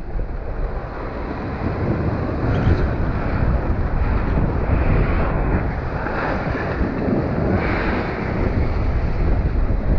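Wind buffeting the microphone over breaking surf and rushing whitewater, a dense steady noise with no let-up.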